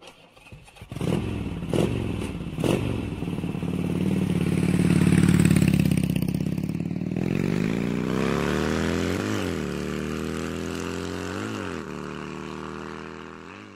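Motorcycle engine revving, then accelerating with a climbing pitch that dips briefly at each upshift, about every two seconds. A few sharp hits near the start; it fades out at the end.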